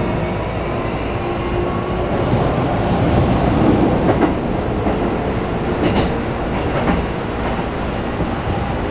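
Running sound inside a Keikyu New 1000 series 1890-subseries car with a Toyo hybrid SiC VVVF inverter: a steady rumble of the train under way, with a faint high whine from the traction drive slowly rising in pitch. Wheels click over rail joints a few times around the middle.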